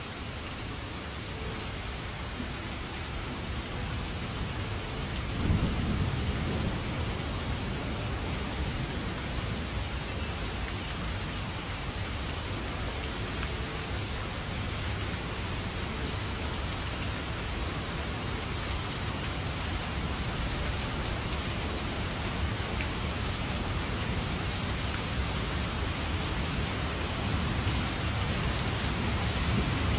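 Heavy rain pouring steadily. A low roll of thunder swells about five seconds in, and another builds near the end.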